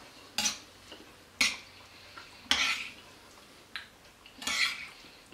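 A metal spoon clinking and scraping against a ceramic bowl as it scoops up beans. There are several separate sharp clinks and short scrapes, with quiet gaps between them.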